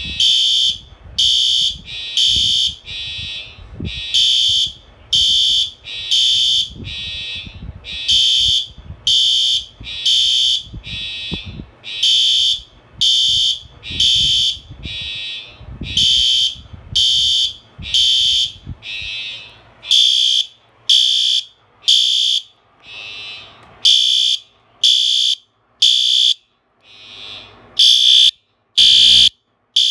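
Fire alarm sounders on a test wall sounding in loud, repeated short beeps, about one to two a second. A low rumble underneath stops about two-thirds of the way through, leaving the beeps with silent gaps between them.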